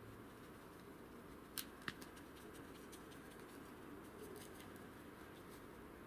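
Near silence, broken by faint snaps and crackles from someone moving through snowy forest undergrowth. There are two sharp cracks about a second and a half in, then scattered faint clicks.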